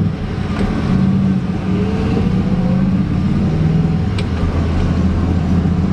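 1994 Ford F150's 5.0 V8 engine running as the pickup is driven, heard from inside the cab. A faint tone rises in pitch between about one and a half and three seconds in.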